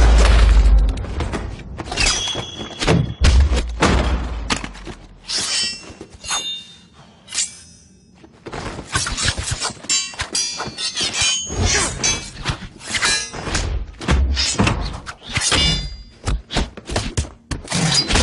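Film fight-scene sound effects over a music score: a rapid run of hits, thuds and impacts, some with a metallic ring. There is a quieter stretch about a third of the way in before the blows pick up again.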